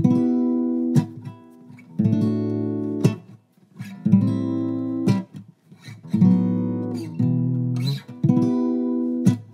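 Background music: acoustic guitar strumming chords, about one strum a second, each chord left ringing.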